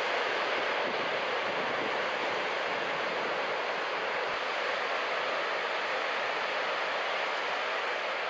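Steady wash of ocean surf breaking along a beach, an even rushing noise with no distinct single crashes.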